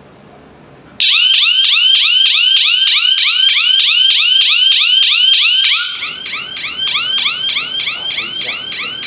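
Siren of a Patrol Hawk G1 GSM home alarm system going off after its door sensor is triggered: a loud, fast warbling sweep, about six a second, that starts suddenly about a second in and becomes somewhat quieter about six seconds in.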